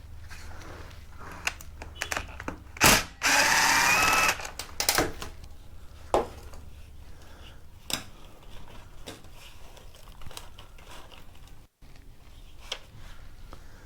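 A cordless drill/driver spins for about a second with a rising whine, backing out screws from the trimmer's shaft housing. Scattered clicks and clunks of the tool and small parts come before and after it.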